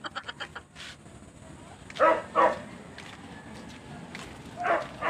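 A dog barking: two short barks about two seconds in and another near the end.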